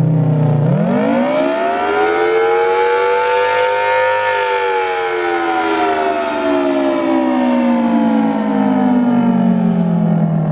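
Federal Signal Thunderbolt 1000T outdoor warning siren sounding its wavering attack signal, loud. The pitch sweeps up steeply from low about a second in, peaks around four seconds, then slides slowly back down to low near the end.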